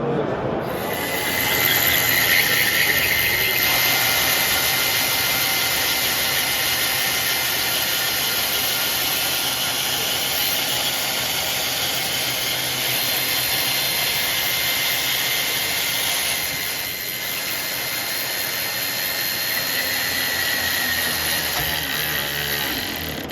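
Steady mechanical hiss with a high whine, starting about a second in and running on without a break until it cuts off.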